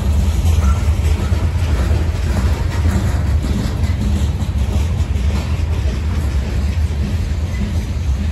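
Freight train of covered hopper cars rolling past close by: a steady low rumble of steel wheels on rail.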